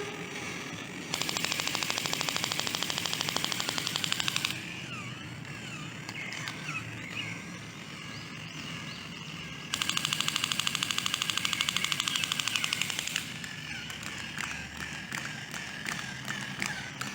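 Two bursts of rapid machine-gun fire, each lasting about three and a half seconds, with high warbling tones in the pause between them.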